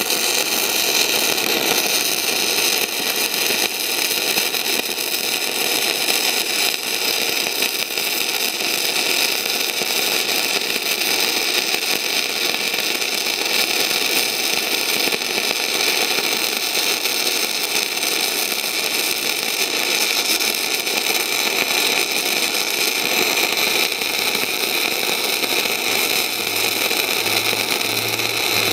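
Gasless MIG welding with self-shielded flux-cored wire: a continuous crackling arc that runs without a break while a fillet weld is laid in the flat position. The arc is stable but throws a lot of spatter, and the welder is on straight polarity.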